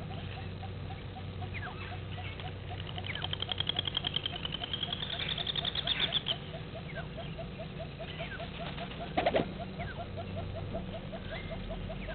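Wild waterside ambience: a bird sings a rapid, high trill for about three and a half seconds, growing louder toward its end. Underneath runs a steady series of short low calls, about five a second. About nine seconds in there is one short, sharp call.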